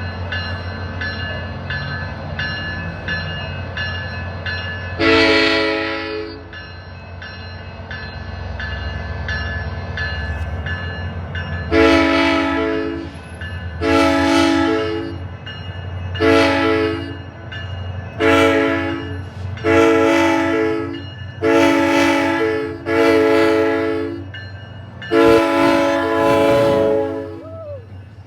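SunRail commuter train's multi-note air horn playing a horn show. One blast comes about five seconds in, then eight blasts in quick succession from about twelve seconds on, each one to two seconds long, over the low rumble of the train.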